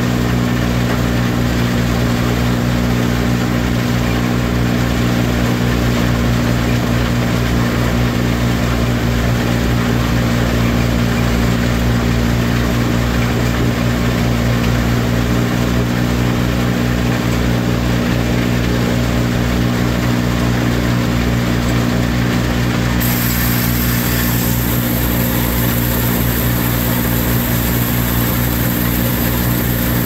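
Chopped corn silage blown up the fill pipe by the silo blower, pouring onto the pile inside the silo: a steady rushing hiss over a steady low mechanical drone. About three quarters of the way through, a brighter hiss joins in.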